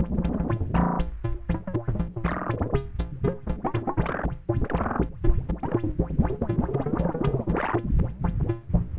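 Behringer Neutron analog synthesizer playing a fast sequence of short, sharp notes over a deep bass, its tone swelling brighter and duller every second or two.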